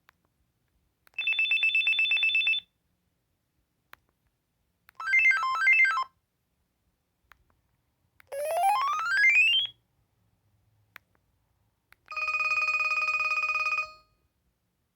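LG VX5200 cell phone playing four short electronic ringtones one after another, with pauses between: a fast two-tone trill, a quick run of melodic beeps, a rising sweep, then a steady buzzy tone.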